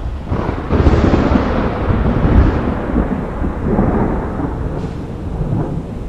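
A long roll of thunder that swells about a second in, peaks, then slowly rumbles away, over a steady hiss.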